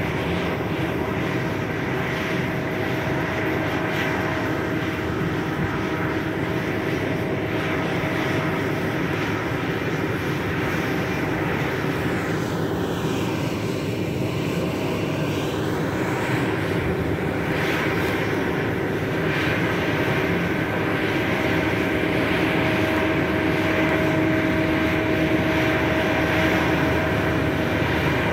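The engine of a manure-pit agitator boat running steadily under load as it drives the pump that jets slurry from its nozzle, a constant drone that gets a little louder in the second half.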